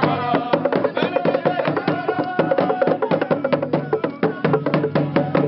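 Lively percussion music with rapid wooden clicks and drum strokes in a fast, steady rhythm, with some pitched voices or instruments over it.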